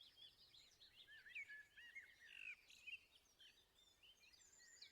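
Faint birdsong: several small birds chirping and twittering in quick, overlapping phrases over a soft outdoor hiss.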